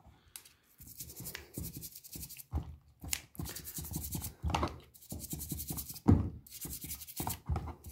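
Toothbrush bristles scrubbing a wet metal control knob: quick back-and-forth scratchy strokes in short runs with brief pauses, and soft knocks as the knob shifts in the fingers.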